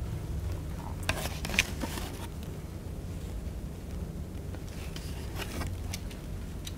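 Chalk tapping and scraping on a blackboard in short strokes, in two bursts of clicks, over a steady low room hum.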